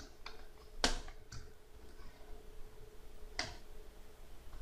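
A few sharp plastic clicks and snaps from a Dell Latitude D630's palm rest being pried up by hand, its clips popping and the edge flexing. The loudest click comes about a second in, with another at about three and a half seconds.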